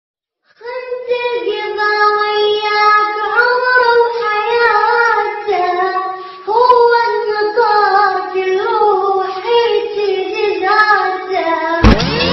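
A child's high solo voice singing unaccompanied, holding long notes with ornamented turns. About a second before the end, music cuts in with a loud swooping sound.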